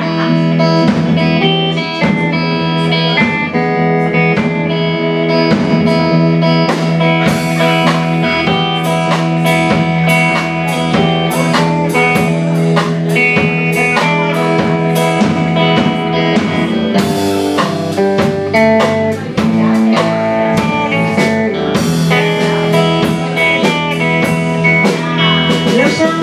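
Blues band playing an instrumental passage on two electric guitars, electric bass and drum kit.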